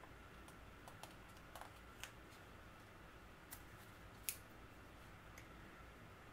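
Faint, scattered clicks and ticks of a sticker being peeled from a paper sticker sheet and pressed onto a planner page, about half a dozen in all, one sharper than the rest a little past the middle, over near silence.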